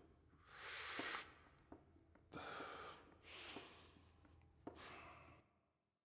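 A person breathing heavily: four loud breaths about a second apart, then the sound cuts off near the end.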